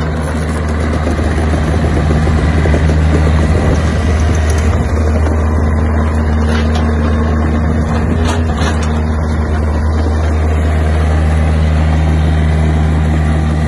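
Takeuchi TB53FR mini excavator travelling on its rubber tracks, its diesel engine running with a steady low drone. A few brief knocks sound around the middle.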